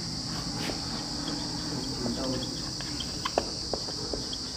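Marker pen writing on a whiteboard: faint short squeaks and a few light taps, mostly in the second half, over a steady high-pitched drone.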